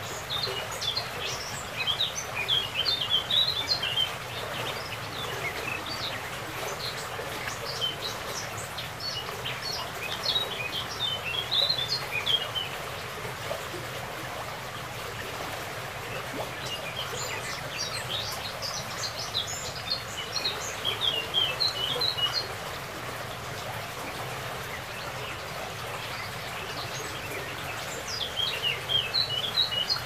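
Small stream rushing steadily over a shallow bed, with a songbird singing in bursts of quick, high chirps four times, each lasting a few seconds.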